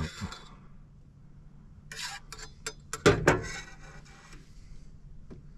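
A few light clicks and clinks of a fork against a steel cooking pot, then a louder knock about three seconds in as the pot is set down on a metal table, and one more small click near the end.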